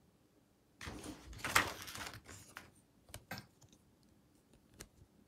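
Plastic Transformers Airazor action figure picked up and handled, a rustling clatter starting about a second in, followed by a few sharp plastic clicks as its hinged parts are moved.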